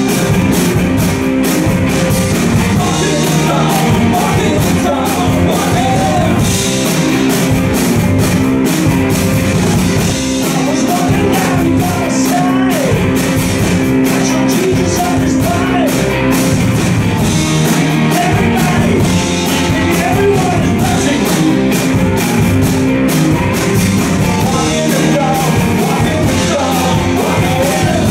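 Live rock band playing at a steady, loud level: two electric guitars, an electric bass and a drum kit.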